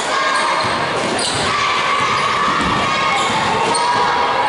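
Basketball game play in a gym: a ball dribbling and short rising-and-falling shoe squeaks on the court, over the steady noise of crowd voices echoing in the hall.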